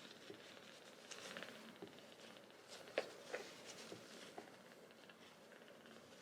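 Near silence with faint rustling and small ticks, and a sharp click about three seconds in followed quickly by a second.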